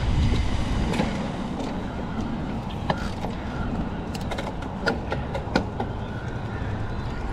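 Mountain bike riding a dirt trail: a steady rumble of tyres and movement, with scattered sharp clicks and rattles from the bike over rough ground.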